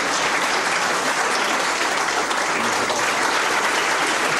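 Audience applauding: many hands clapping steadily and evenly throughout.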